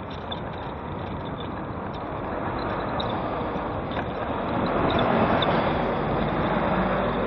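Steady street traffic noise that swells about four seconds in as a Volvo articulated lorry with a curtain-sided trailer drives past close by, then stays loud.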